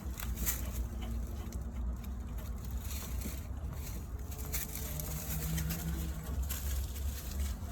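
Faint clicks and scrapes of a small inlet water filter being refitted and screwed back into a tankless water heater, over a steady low rumble.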